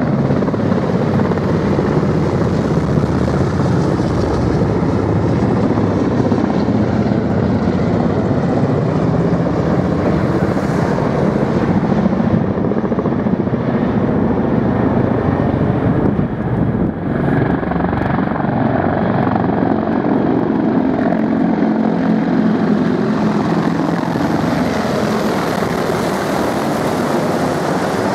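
A formation of military attack helicopters flying low overhead, their rotors and turbines making a loud, steady roar. The roar dips briefly a little past halfway.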